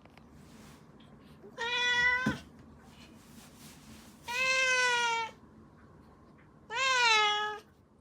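Domestic cat meowing three times, each meow under a second long, the last one rising and then falling in pitch.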